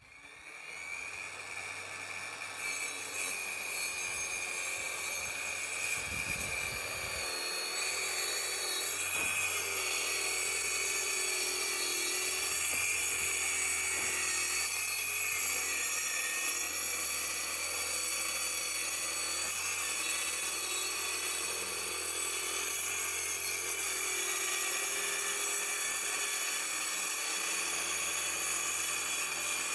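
Electric power saw running steadily as it cuts lengthwise through a wooden board, ripping off a narrow strip; a high motor whine over the cutting noise, building up over the first few seconds and then holding level.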